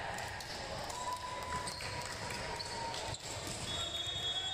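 Volleyball gym ambience: a steady background murmur of voices with a few scattered thumps and short squeaky tones from play on the court.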